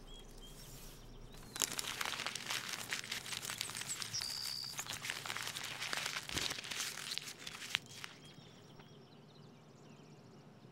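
Sheets of paper and folders rustling and crinkling as they are pulled out of a bag and shuffled through, a dense run of handling noise that dies down near the end.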